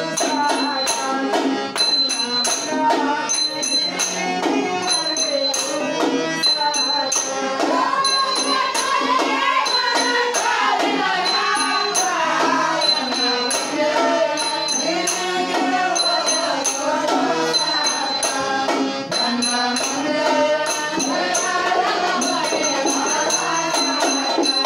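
Devotional bhajan singing by a group of men, a lead voice through a microphone with others joining, over the steady reedy tones of a harmonium. Small hand cymbals are struck in a steady, even beat, ringing brightly.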